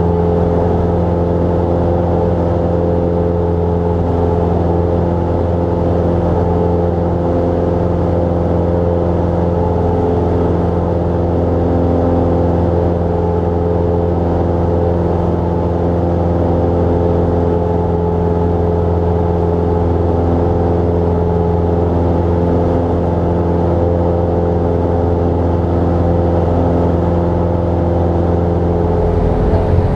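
Cessna 172 Skyhawk's piston engine and propeller heard inside the cabin, a steady, unchanging drone.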